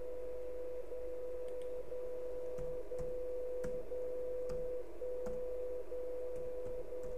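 A longwave time-signal carrier received on a web SDR, heard as a steady tone that drops out briefly once a second to mark the seconds, over receiver hiss. A few faint clicks sound alongside it.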